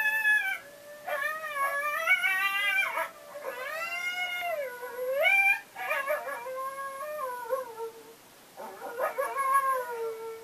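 Recorded coyote howls played back through a speaker: several long, wavering howls that glide up and down in pitch, in stretches of a few seconds with short breaks between them.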